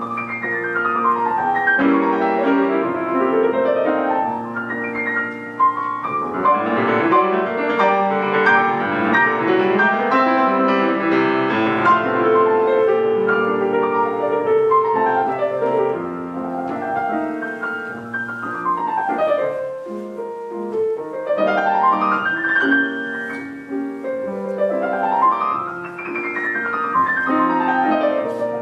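Solo piano playing a classical-style piece, with rapid runs sweeping down and up the keyboard several times over a sustained accompaniment.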